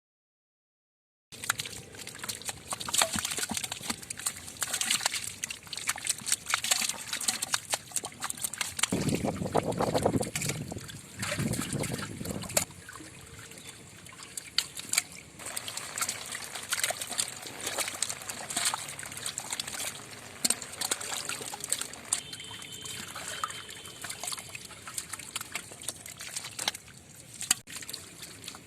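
Water splashing, sloshing and trickling, with many small sharp clicks and knocks. It starts abruptly after a moment of silence, and there is a heavier, deeper bout of sloshing about ten seconds in.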